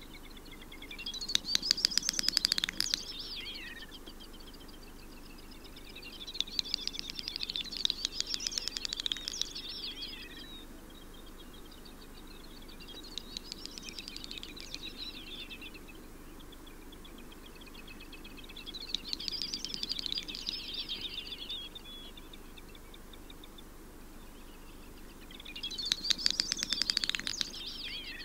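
Great snipe displaying on a lek: five bouts of its song, each a few seconds long, a run of fast dry clicks mixed with a bubbling twitter.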